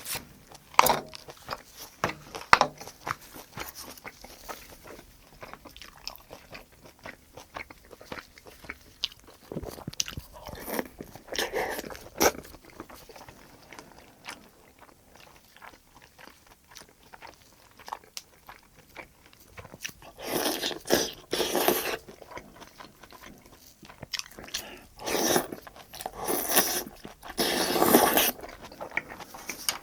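Close-miked eating sounds: a person chewing and biting a mouthful of braised kimchi (kimchi-jjim) with rice, with many small wet clicks of the mouth. Louder stretches of chewing come around a third of the way in and again twice near the end.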